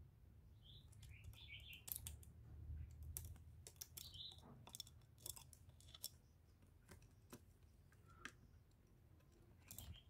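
Spotted dove moving about in its cage: a faint, irregular string of sharp clicks and taps, thickest in the first half. A few short high chirps come about a second in and again near four seconds.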